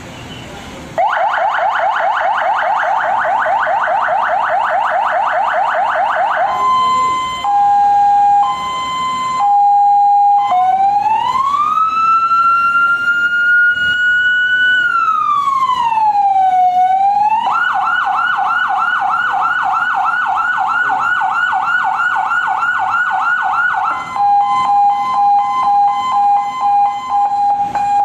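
Electronic ambulance siren cycling through its tones: starting about a second in with a fast yelp, then a hi-lo two-tone, then a slow wail that rises and falls once, back to the fast yelp, and ending on the hi-lo two-tone.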